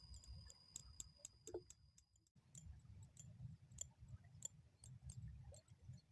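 Near silence outdoors: a faint low wind rumble on the microphone with scattered faint ticks, and a thin steady high tone that stops about two seconds in.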